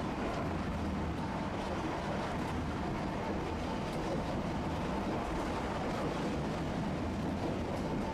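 Tosaden streetcar running along street track, heard from inside the car: a steady rumble of wheels and running gear with a faint steady whine.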